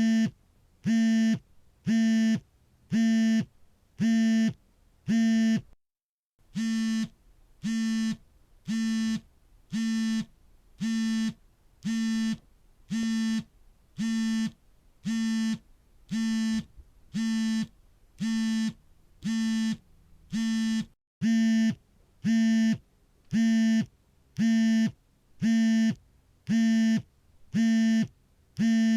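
Smartphone vibration motor buzzing for an incoming call in an even pattern: about one steady, low buzz per second, each lasting roughly half a second.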